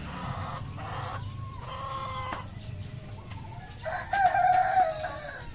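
Light Brahma rooster crowing once, about four seconds in, a single call of about a second; a few short clucks come before it.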